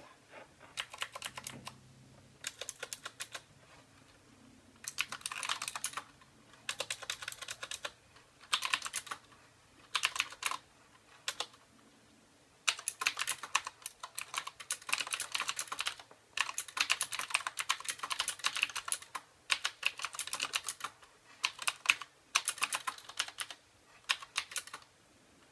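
Typing on a Qwerkywriter S typewriter-style mechanical keyboard: rapid clicky keystrokes in short bursts with pauses between them, becoming a near-continuous run of typing about halfway through.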